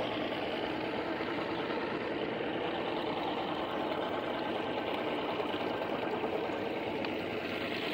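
Outboard boat motors idling, a steady even running noise with no changes.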